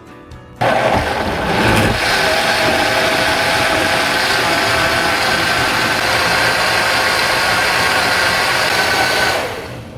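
Countertop blender switched on, running steadily as it blends chopped ginger, lemon, cucumber and aloe vera with water, then winding down just before the end.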